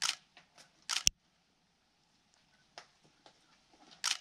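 A climber moving on the rock: a few short scuffing and slapping sounds of hands and shoes on the holds, the sharpest a single hard knock about a second in.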